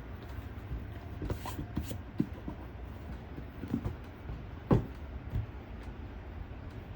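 Handling noise from laptop packaging being unboxed: a few light knocks, creaks and scrapes of cardboard and packing. The sharpest knock comes a bit under five seconds in.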